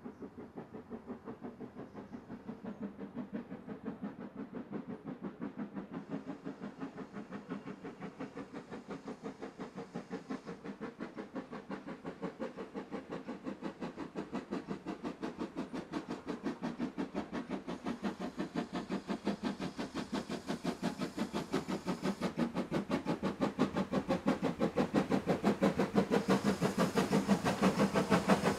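Steam locomotive working a train, its exhaust chuffing in a steady, quick beat of about four to five a second, growing louder as it approaches.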